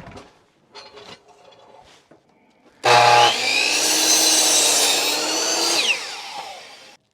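A few faint knocks, then an electric power saw starts up with a pitch that rises as it spins up, and runs cutting through wood for about four seconds. It cuts off suddenly just before the end and starts again right away.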